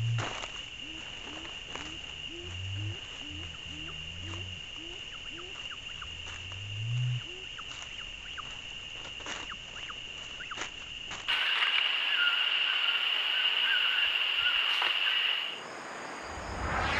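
Male great curassow giving several deep, low booming hums in the first seven seconds, the last one rising in pitch, over a steady high insect drone. From about eleven seconds a louder chorus of night insects takes over.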